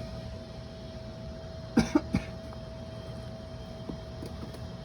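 A person coughs three times in quick succession about two seconds in, over a steady hum.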